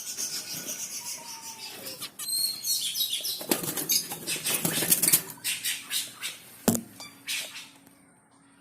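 Baby finches chirping and stirring: thin high chirps, then a dense run of rapid ticks and scratchy calls that peaks in the middle and dies away. A single sharp knock comes about two-thirds of the way through.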